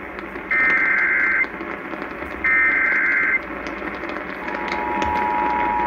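Emergency Alert System header: two bursts of data tones, about a second each, then a steady two-tone attention signal that starts about four and a half seconds in. It announces an emergency alert, here a tornado warning.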